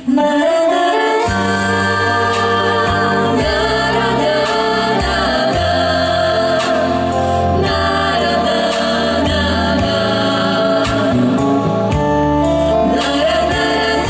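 Female vocal group singing into microphones over an instrumental accompaniment, amplified through stage loudspeakers.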